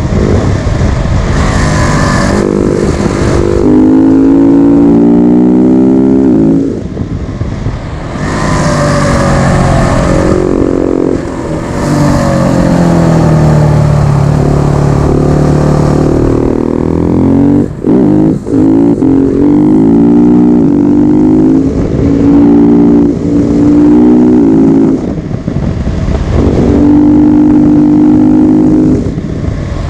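KTM 690 SMC R supermoto's single-cylinder engine under hard acceleration, its note climbing through each gear and dropping at the shifts. The throttle is shut off briefly several times, most sharply twice in quick succession a little past the middle.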